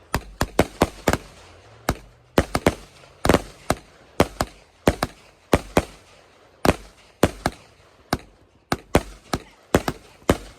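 Consumer fireworks going off in a long, irregular run of sharp bangs, about three a second, some coming in quick clusters.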